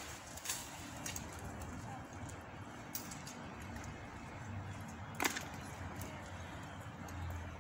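Steady outdoor background noise with a few light clicks and one sharp knock about five seconds in, as a magnet-fishing rope is hauled up hand over hand at a metal bridge railing.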